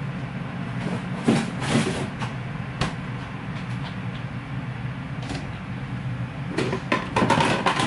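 Kitchen handling noises: scattered knocks and clicks as a box of frozen waffles is handled, over a steady low hum, with a busier clatter near the end.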